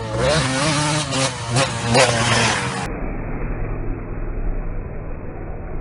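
KTM 250SX two-stroke motocross engine revving up and down as the bike is ridden hard. About three seconds in the sound cuts to a duller, steady low drone.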